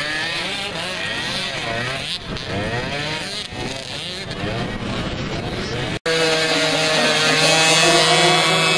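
Several mini ATV quad engines revving up and down and overlapping as the quads pull away. After a cut about six seconds in, a row of mini quads idles steadily.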